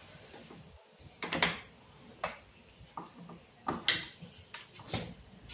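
Wooden jig pieces being handled and set down on a wooden workbench and plank: a scattered series of sharp knocks and clatters, the loudest about a second and a half in and again near four seconds in.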